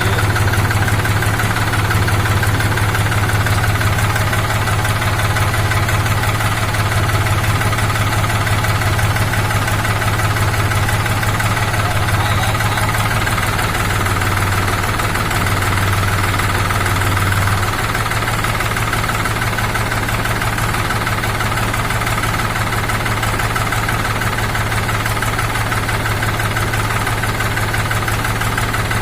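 New Holland TT4.55 tractor's diesel engine running steadily, with a slight drop in level a little past halfway through.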